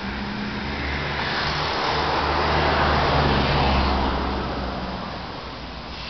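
A road vehicle passing by: engine and tyre noise that swells up, is loudest about three seconds in, and fades away.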